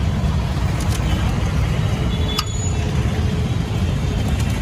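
Steady low rumble of street traffic, with a few faint sharp clicks.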